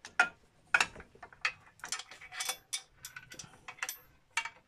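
Irregular metallic clicks and ticks of hand tools and screws on a metal suspension bracket as an M10 screw and spacer tube are fitted and tightened. Two sharper knocks come in the first second, then a quicker run of small clicks.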